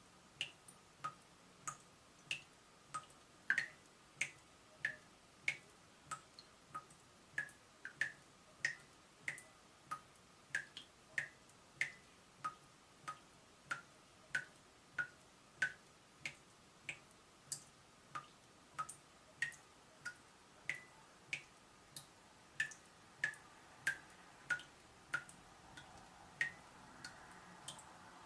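Leaking tap dripping: single water drops plinking in a steady rhythm, about three every two seconds.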